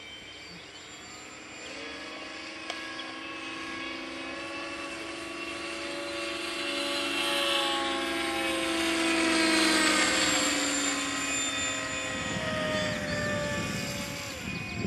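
12-cell electric Kasama Srimok 90 RC helicopter in flight: a steady whine from its rotor and drive train. It grows louder as the helicopter comes nearer, peaking about ten seconds in, then fades a little.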